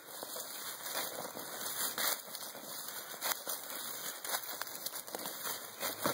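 A hand scooping and scraping loose soil out of a small hole in dry leaf litter, giving an irregular rustling and crackling of dirt and dry leaves with many small clicks.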